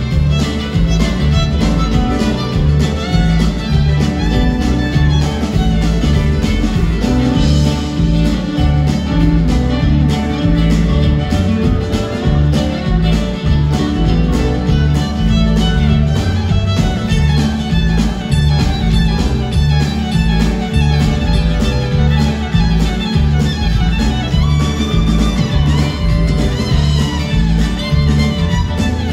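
Live band music: a fiddle playing the lead line over a steady drum beat and the rest of the band in a bluegrass-flavoured jam.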